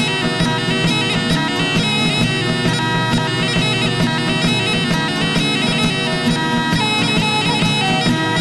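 Music with a reedy wind instrument playing a steady drone under a moving melody, in the manner of bagpipes.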